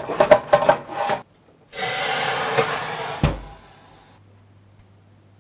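Wooden peel scraping and clattering as bread rolls are slid onto a hot baking sheet. Then about a second and a half of steady hiss as water from a Schwadomat syringe steam injector is shot into the hot oven to steam the bake. A low thud of the oven door shutting cuts it off, leaving a faint steady hum.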